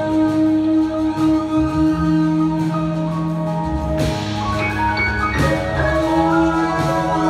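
Live jazz band playing: held keyboard chords over electric bass and drums, with trumpet. A crash comes about four seconds in, and more notes join after it.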